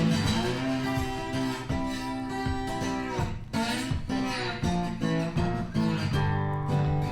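Background music of strummed and plucked acoustic guitar, with no narration.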